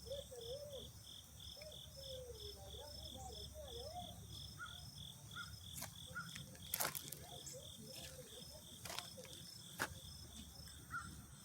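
Insects chirping faintly in a steady, even pulse of about four chirps a second, over a low background rumble, with a few sharp clicks in the middle.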